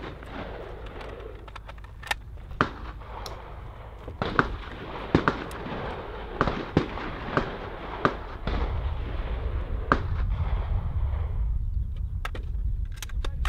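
AR-15 rifle shots fired in an irregular string, about nine sharp cracks between two and ten seconds in, with fainter shots scattered around them. A low wind rumble on the microphone grows in the second half.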